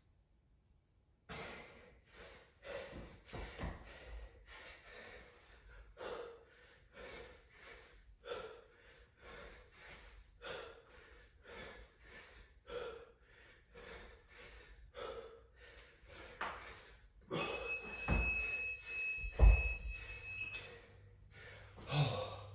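A man's hard, gasping breaths after intense exercise, one about every second. Near the end a gym interval timer gives a long steady beep of about three seconds as time runs out, and during it a heavy thud, a dumbbell dropped to the rubber floor.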